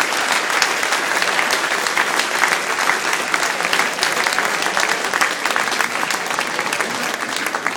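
Crowd applauding, many hands clapping at once in a dense, steady patter.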